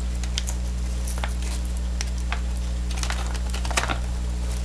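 Yellow padded plastic mailer being handled and cut open with a folding knife: scattered crinkles and small clicks, over a steady low hum.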